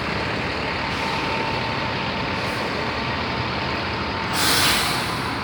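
Steady noise of stalled heavy traffic with bus and truck engines running, then a loud, sharp hiss of an air brake releasing about four seconds in.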